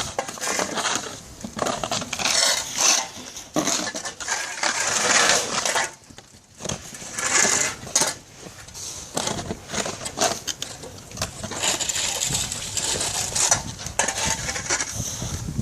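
Snow shovels scraping over snow-covered pavement in repeated strokes of a second or two each.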